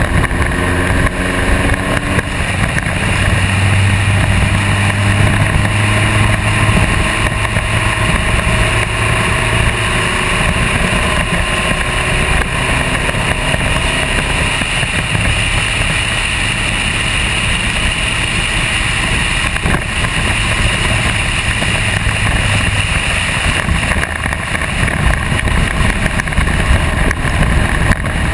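Spec Racer Ford race car's engine running hard on track. Its note climbs in pitch over the first couple of seconds as the car accelerates, then holds fairly steady.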